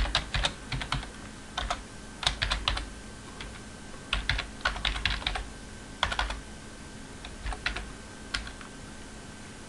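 Typing on a computer keyboard: short runs of quick keystrokes with pauses between them.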